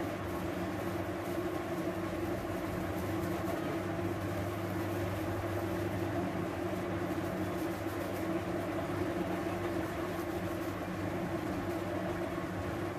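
A steady low mechanical hum with an even drone, unchanging throughout.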